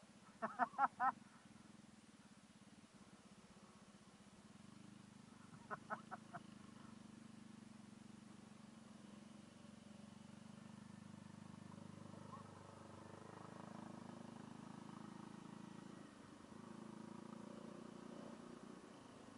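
Low, steady hum of a Suzuki Address 110 scooter's small single-cylinder engine under way, a little louder after about four seconds. Just after the start comes a quick run of four short, loud honking calls, and a fainter run of four about six seconds in.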